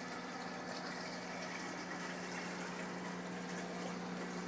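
Aquarium sump return pump humming steadily, with the rush and bubbling of the return flow in the tank water.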